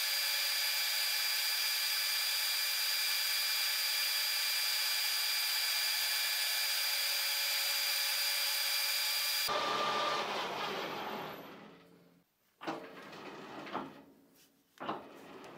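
Metal lathe with a polygon-turning attachment running, its rotating cutter milling a star shape into an aluminium disc in the chuck: a steady high whine with a cutting hiss. About ten seconds in it stops and fades away over a couple of seconds, followed by a few short knocks and rattles.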